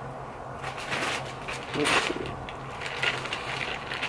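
Small metal screws clinking and rattling as they are picked through and handled, with a louder clatter about two seconds in.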